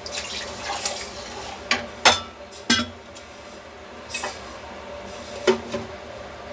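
Water poured from a steel bowl onto sugar in a kadhai to start a sugar syrup, followed by several sharp clinks and knocks of kitchen utensils, the last as a glass lid is set on the pan.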